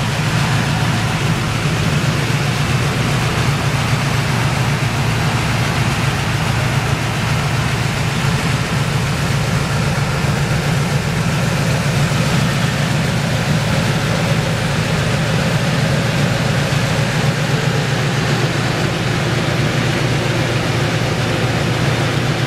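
1970 Chevrolet Camaro Z28's V8 engine idling steadily, with a fast, even low pulse.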